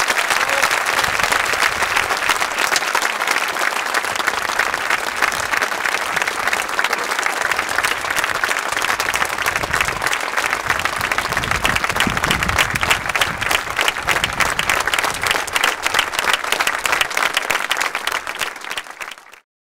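Large crowd applauding steadily, a dense patter of many hands clapping that stops abruptly near the end.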